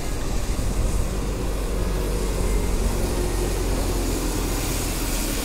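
Road traffic close by: a bus's engine rumbling as it passes, with road noise growing stronger near the end.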